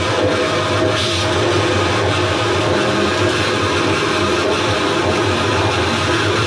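Experimental noise improvisation: a dense, steady wash of amplified noise with low droning tones. It comes from a homemade perforated metal sheet strung with coil springs, played by hand and run through effects pedals and an amp.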